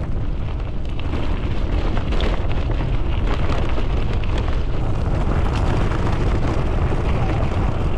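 Steady low rumble of wind buffeting a GoPro's microphone while a gravel bike's tyres roll over loose gravel.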